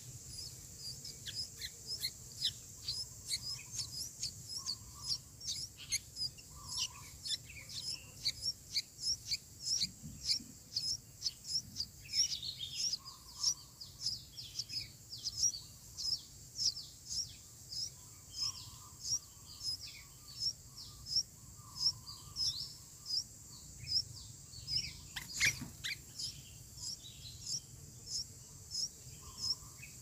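Sooty-headed bulbul nestlings begging at the nest with short, high chirps repeated about twice a second, a few louder, lower bulbul notes breaking in, the loudest about 25 seconds in. A steady high insect drone runs behind.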